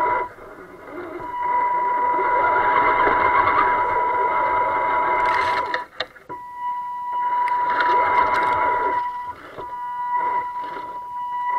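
Electric motor and gear train of an RC rock crawler whining under throttle: a steady high whine with gear noise beneath it. It cuts out briefly three times as the throttle is let off, once with a sharp click around the middle.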